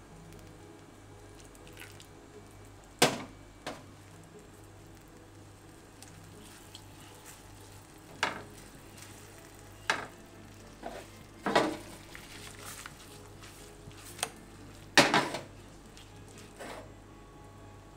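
Wooden spatula knocking and scraping against a nonstick frying pan as melting mozzarella and milk are stirred, over a faint steady sizzle. There are about nine sharp knocks at irregular intervals, the loudest about three seconds in and near the end.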